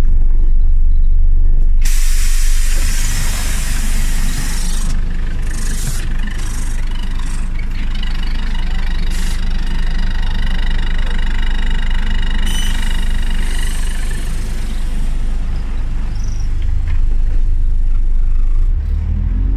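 Scania OmniCity city bus heard from inside: its engine running with a steady low rumble, and about two seconds in a loud hiss of compressed air from the air brakes or pneumatic doors begins and runs on for many seconds before fading.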